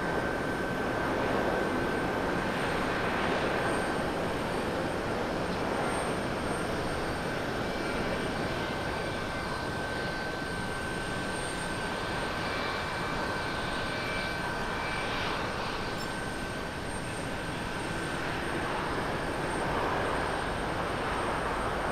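Japan Airlines Airbus A350-900's Rolls-Royce Trent XWB jet engines during a landing, from approach through touchdown and rollout. The engines give a steady jet rumble with a thin high whine that stops about two-thirds of the way through.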